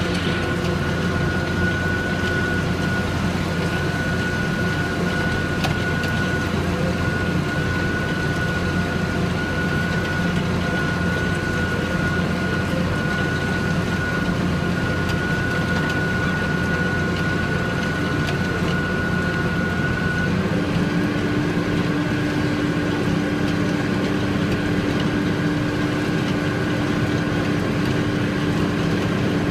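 Tractor engine running steadily under load while ploughing, with a steady high whine over it. About two-thirds of the way through the whine stops and a lower hum comes in, as the engine or transmission note changes.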